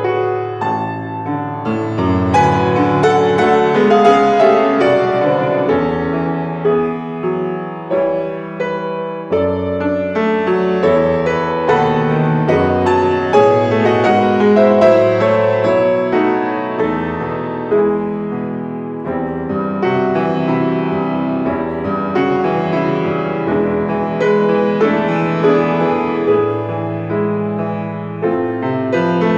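Yamaha grand piano played solo: a continuous flow of many notes and chords, easing a little twice before building again.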